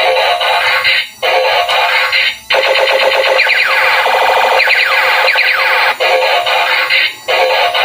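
Electronic music with a synthesized voice, thin with no bass, broken by brief pauses and with sweeping up-and-down glides in the middle.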